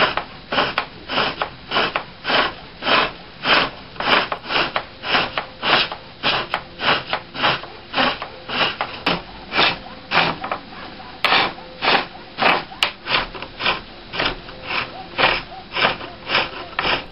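Viking tall lathe, a foot-powered pole lathe, turning wood while a hand tool cuts the spinning workpiece in short strokes, about two or three a second, in a steady rhythm.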